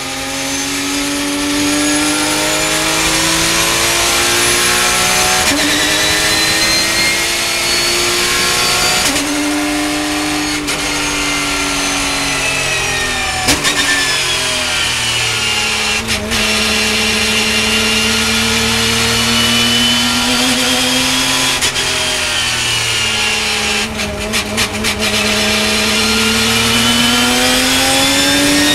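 Porsche race car's engine heard from inside the cockpit at race pace. Its pitch climbs under throttle and drops back sharply several times at gear changes and lifts. A brief rattle of clicks comes about three-quarters of the way through.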